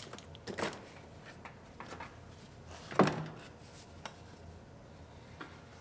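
Clicks and knocks of plastic and rubber being handled as the engine's air intake tube is pulled loose and lifted out, with one louder knock about three seconds in.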